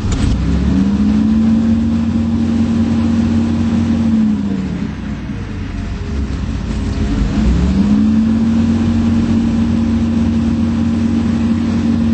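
2005 Case CX225SR excavator's Isuzu diesel engine running: it revs up and holds at high speed for about four seconds, drops back, then revs up again about 7.5 seconds in and holds there.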